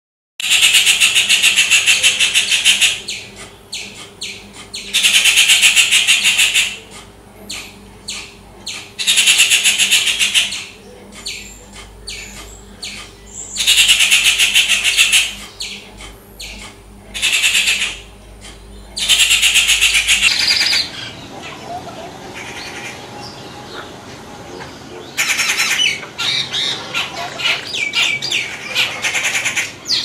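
Rufous treepie giving loud, harsh, grating calls in repeated bursts of about two seconds each, with softer calls between them.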